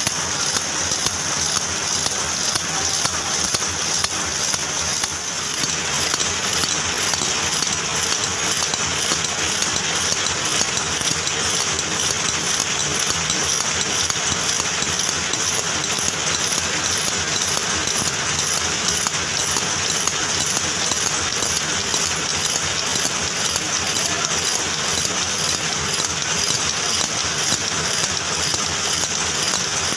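Belt-driven screw-making machine running steadily with a fast, regular mechanical clatter, small steel screws rattling into a metal pan.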